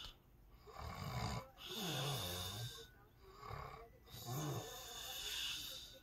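A man asleep on his back snoring: two snores about three seconds apart, each a low rattling intake followed by a long hissing breath.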